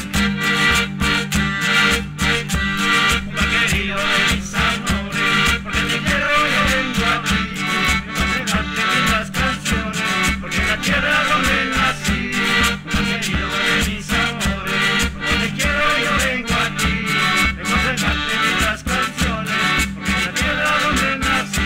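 Traditional Andean folk music from Cumbal played by an instrumental group, with a steady, evenly repeating bass beat under a busy melody.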